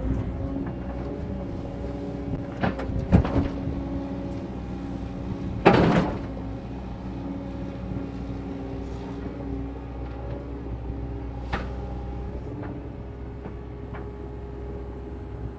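Hydraulic excavator engine running steadily, with several sharp clanks of the bucket and machinery about 3 seconds in, a loud one about 6 seconds in, and a lighter one near 11 seconds.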